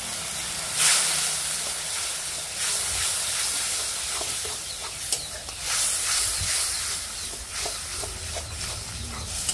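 Onion paste and turmeric sizzling in hot oil in a steel kadai, stirred with a metal spatula; the sizzle surges and eases as it is stirred, with a few short scrapes. This is the masala being fried down for a fish curry.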